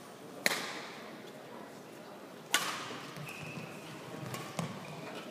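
Badminton rackets striking a shuttlecock twice, about two seconds apart, each a sharp crack that echoes in a large hall.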